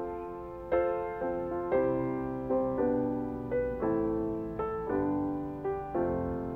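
Slow, gentle piano music: single notes and chords struck about every half second, each dying away.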